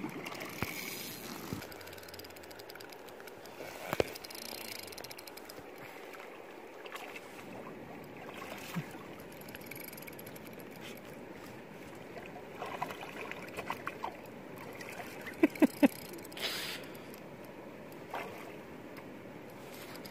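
A dog swimming out to retrieve a fish, with water lapping and sloshing around it as it paddles. A few short sharp knocks and splashes break in, the loudest a quick run of three about fifteen seconds in.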